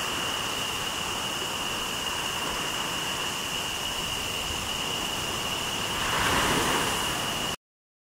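Steady rush of wind and waves on open water, with a continuous high-pitched whine over it; the rush swells louder about six seconds in, and the sound cuts off abruptly near the end.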